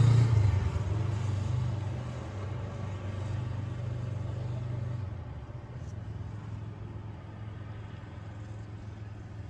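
Low engine rumble of passing road traffic, loudest at the start and fading over the first few seconds as a vehicle moves off, then dropping to a steadier, quieter rumble.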